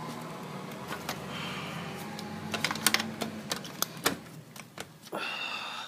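A quick run of sharp clicks and taps from handling an air handler's metal electrical box and wiring, over a low steady hum that fades out about halfway.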